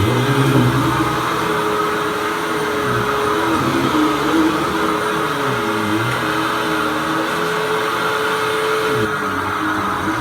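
Hoover WindTunnel Lite upright vacuum cleaner running, a steady motor whine with lower tones that dip and recover in pitch every second or two.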